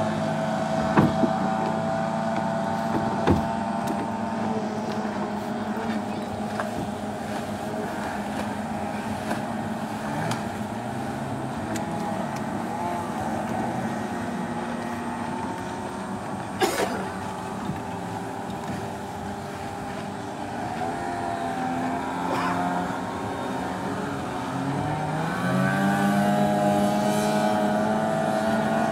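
Outboard motors of racing longboats running at speed, their pitch dipping a few seconds in and rising again near the end. A few sharp knocks stand out over the engines.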